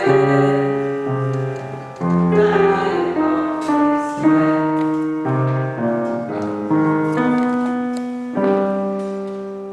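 Piano playing the closing bars of a slow song, a run of chords that ends about eight seconds in on a final held chord that fades away.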